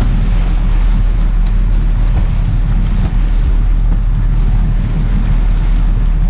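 Wind buffeting the microphone over the steady low rumble of a sportfishing boat running, with water churning around the stern.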